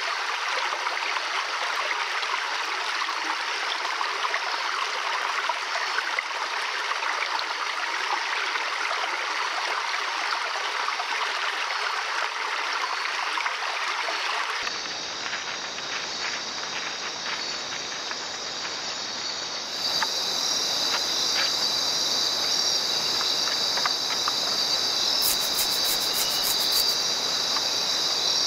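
Forest stream running over rocks, a steady wash of water. About halfway through it gives way to a night chorus of insects with a steady high-pitched trill.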